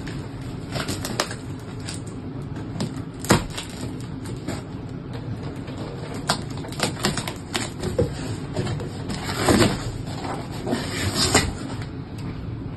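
Scissors cutting through the packing tape on a cardboard box and the cardboard flaps being pushed open: scattered sharp snips and crackles, with a longer scraping rustle around the middle, over a steady low background rumble.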